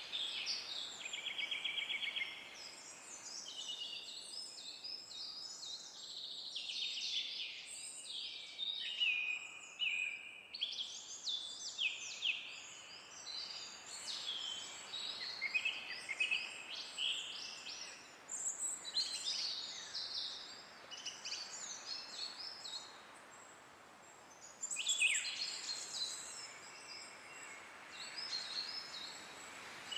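Several birds singing and chirping at once in a dense chorus of overlapping calls, with a fast trill about a second in and a short lull near the three-quarter mark, over a soft steady hiss of light wind.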